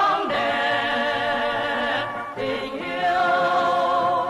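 Male vocal ensemble singing, two long held phrases with vibrato and a short break about two seconds in.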